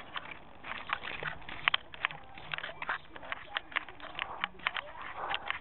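A rapid, irregular series of sharp clicks and knocks, several a second, over a low outdoor hiss.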